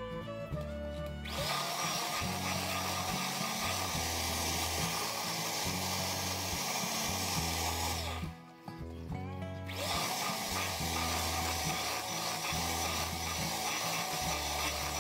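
Electric hand mixer beating powdered sugar into cream cheese frosting in a steel bowl. The motor whines up to speed about a second in, cuts out briefly just past the middle, then spins up again and runs steadily.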